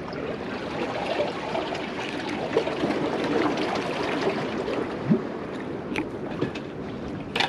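Water trickling and gurgling among the jetty rocks at the waterline, with a few sharp clicks near the end.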